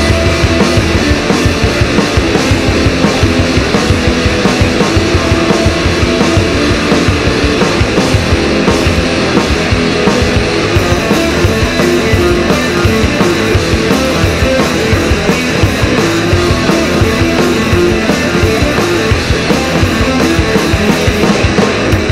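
Indie/alternative rock band recording, an instrumental stretch with no singing: loud electric guitars over a steady drum beat.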